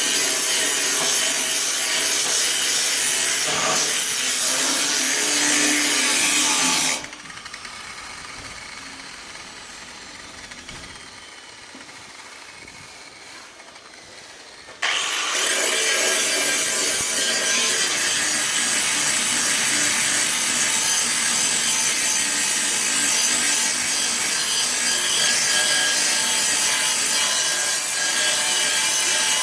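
Grinder with a grinding disc running against welded steel on a car body, a loud, steady grinding. It stops about seven seconds in, the disc winding down, and starts grinding again about eight seconds later.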